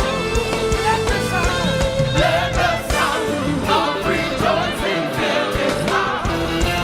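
Live gospel praise music: a band playing a steady drum beat under sung vocals with a choir.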